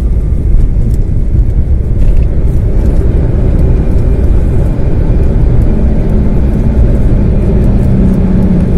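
Cabin noise of an Airbus A350-900 with Rolls-Royce Trent XWB engines speeding along the runway: a loud, steady, deep rumble of engines and wheels, with a low hum coming in about two thirds of the way through.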